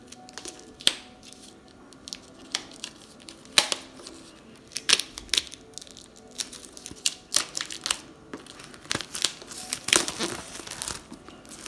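Clear plastic wrap crinkling and tearing as it is pulled off a hardcover book, in irregular sharp crackles that come thicker near the end.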